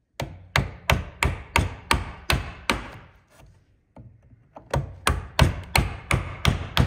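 A mortise chisel struck in steady blows, about three a second, chopping out the waste of a through mortise in timber. A run of about eight blows, a pause of about two seconds, then another run of about seven.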